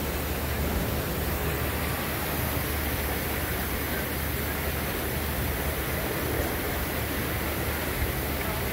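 Steady, even hiss of outdoor ambience with no distinct events.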